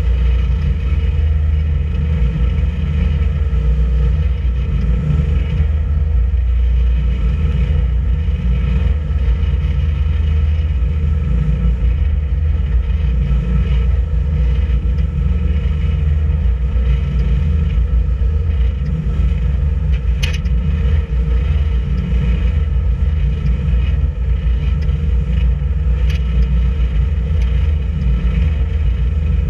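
Boat engine running steadily while underway: a constant low drone with a steady hum above it, never changing in speed.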